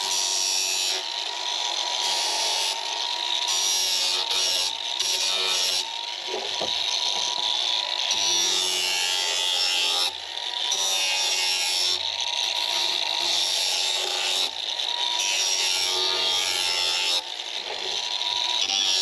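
Random orbital sander running steadily with a constant motor whine as it sands the edges of stacked plywood pieces, the noise dipping briefly a few times as the sander shifts along the wood.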